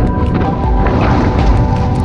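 Background music: sustained chords over repeated deep bass thuds.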